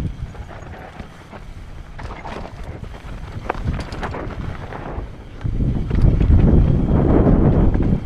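Wind buffeting the camera microphone on a Commencal downhill mountain bike descending dry dirt singletrack, with tyres rolling over the dirt and sharp rattles from the bike over bumps. The rushing grows much louder about five and a half seconds in.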